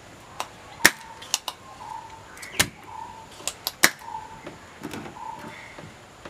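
Spring-loaded desoldering pump (solder sucker) clicking as it is cocked and fired to suck solder off the flyback transformer pins on a CRT TV circuit board. Three loud sharp snaps come among several lighter clicks.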